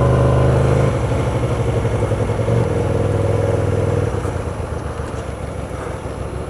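Hyosung GT125R's small 125 cc V-twin engine running at low revs as the bike moves slowly; the engine note changes pitch a couple of times and eases off and quietens about four seconds in.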